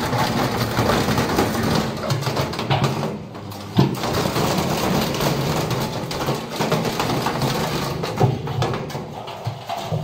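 Indesit washing machine spinning with a heavy brick in its drum: a loud, continuous clatter of knocks and bangs as the badly unbalanced drum slams around inside the stripped cabinet. There is a brief lull about three seconds in, then a sharp bang.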